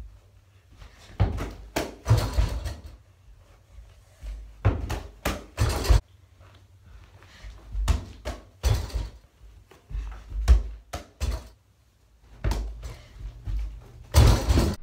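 An over-the-door mini basketball hoop being dunked on: the backboard and door knock and thud against each other, mixed with ball bounces and feet landing on carpet, in a series of irregular impacts. The loudest comes near the end, as the rim is hit hard.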